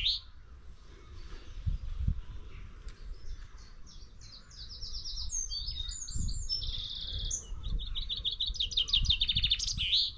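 Small songbirds singing: rapid trilled phrases, sparse at first and coming thicker and louder over the second half, over a low rumbling noise.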